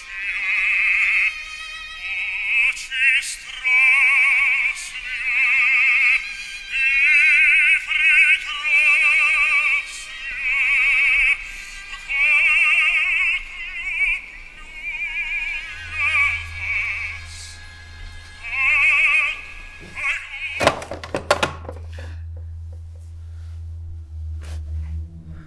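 A high operatic voice sings long notes with a wide, wavering vibrato, in phrases with short breaks. About two-thirds through, a low steady drone comes in under it. A few seconds later a sudden hit cuts the singing off, leaving the drone.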